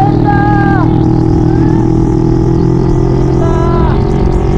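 Yamaha Mio scooter fitted with a Kawasaki Ninja engine running while riding, its pitch rising and falling a few times with the throttle, with wind rumble on the microphone.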